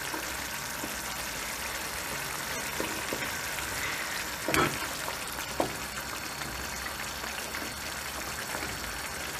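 A tomato, pepper and onion menemen with melting white cheese simmering and sizzling in a stainless steel frying pan on raised heat while a wooden spoon stirs through it, with a few light knocks of the spoon against the pan, two of them close together near the middle.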